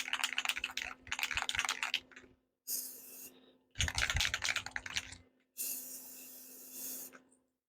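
Aerosol spray paint can: the mixing ball rattles fast as the can is shaken, then a short hiss of spray, another bout of shaking, and a longer hiss of spray lasting about a second and a half.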